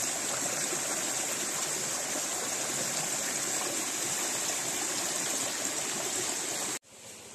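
Water gushing steadily from the open end of a black pipe onto rocks, as the newly opened ram-pump supply line is flushed to bleed out air and cloudy, silty water. The sound cuts off suddenly near the end, leaving a fainter water sound.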